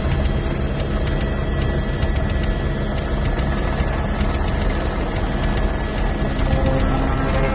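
Helicopter rotor and turbine engine heard from inside the cabin in flight: a steady loud drone with a thin high whine over it.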